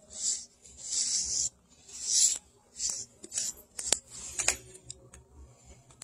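Wire-bristle grooming brush raking through a cat's fur in about six quick scratchy strokes, with a couple of sharp clicks partway through.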